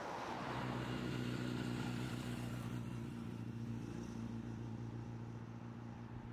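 A motor vehicle engine running steadily at a constant pitch, rising in level over the first second or two and then slowly fading, over a rushing haze at the start.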